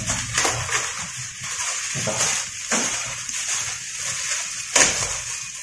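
Clear plastic bag rustling and crinkling as it is handled and opened, with a sharper crackle near the end.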